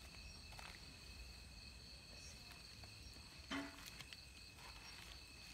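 Faint, steady night chorus of crickets, several thin high tones held without a break. A brief short sound stands out once, about three and a half seconds in.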